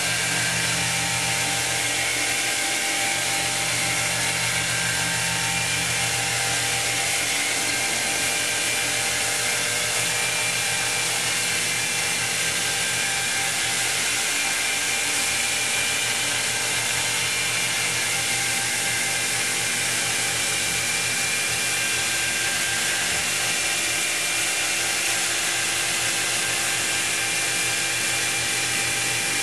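Handheld electric wet polisher running steadily, its diamond pad grinding across a wet stone wall to flatten it. The motor gives a steady whine, and a low hum under it drops away about seven seconds in.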